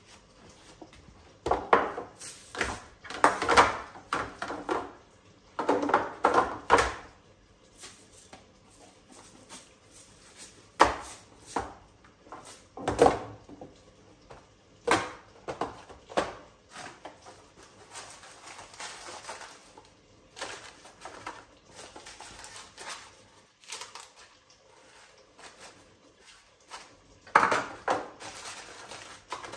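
Plastic storage containers and tins knocking and clattering against the bottom and sides of a pull-out kitchen drawer as it is wiped out and rearranged. The clatter comes in irregular spells, busiest in the first few seconds and again near the end, with quieter handling between.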